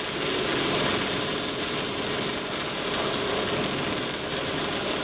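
MIG welding arc giving a steady crackling hiss without a break.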